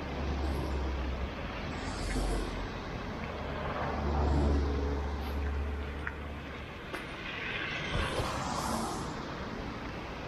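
City street traffic: cars driving past on a wet, slushy road over a low steady rumble, with tyre hiss swelling as a car goes by about eight seconds in.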